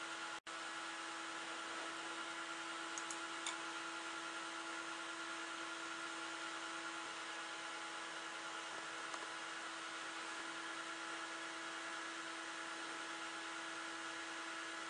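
Athlon XP desktop PC's cooling fans and drives running: a steady whir with a constant low hum tone. The audio drops out for an instant just after the start, and a couple of faint clicks come a few seconds in.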